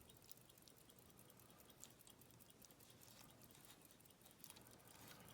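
Near silence: faint room hiss with a few scattered, faint small clicks.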